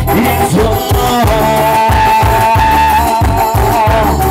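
Live amplified tropical (sonora tropical) band music with a steady pulsing bass beat; from about a second in, a long, slightly wavering melody note is held over it.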